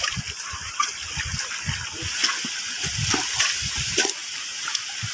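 Rubber boots splashing and sloshing through shallow seawater, footstep by footstep at an uneven pace.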